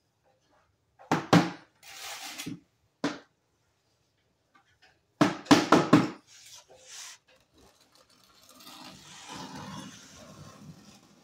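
Hard knocks and clatter, a few about a second in and a cluster around five seconds in, then from about eight seconds in a steel trowel scraping and spreading tile adhesive on a wall.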